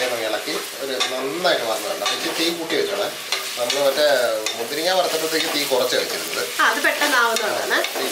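Sliced onions sizzling as they fry in hot oil in an aluminium pressure cooker, while a wooden spatula stirs and scrapes them around the pot without a break.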